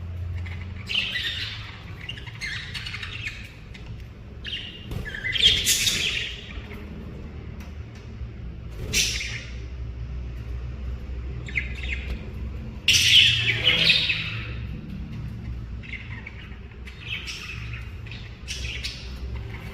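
Lovebirds chirping and squawking: a string of short, sharp, high calls with pauses between, loudest around six seconds in and again around thirteen seconds in.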